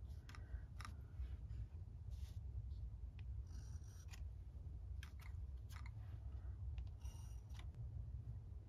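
Faint scattered clicks and light scratches of a paintbrush touching watercolour paper and palette while small flowers are painted, over a low steady hum.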